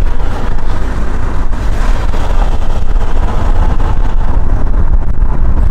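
Steady low rumble of a car being driven, road and wind noise heard from inside the car.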